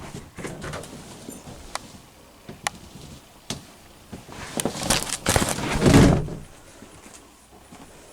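Wooden clicks and knocks from handling the trailer's lift-up bed platform over its storage compartment, with a louder clattering thud about five seconds in as the platform is moved.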